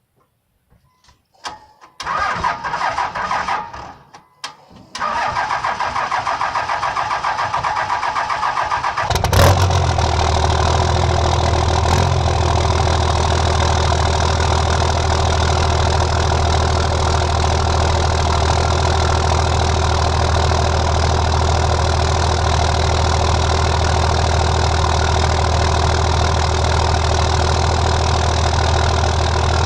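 Dodge Ram's Cummins inline-six diesel cranked on a failing starter in two goes with a short break between, catching with a loud burst about nine seconds in and then settling into a steady idle from a cold start.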